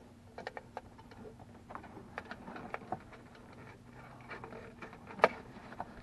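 Scattered light clicks and knocks of hands working at wiring and plastic cab panels, with one sharper knock about five seconds in. A steady low hum runs underneath.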